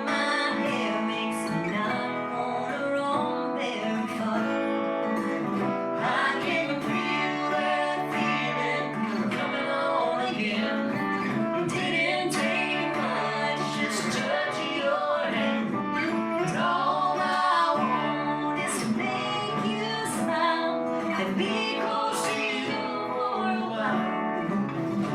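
Live acoustic country song: acoustic guitar strumming under a melody line, with some singing.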